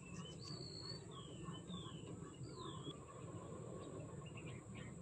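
A bird calling nearby: about five clear whistled notes in the first three seconds, several sliding down in pitch, then a few fainter calls near the end, over steady low background noise.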